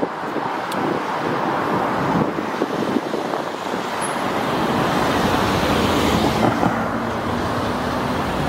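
Busy road traffic, cars passing close by in a steady rush of tyre and engine noise that grows a little louder about halfway through.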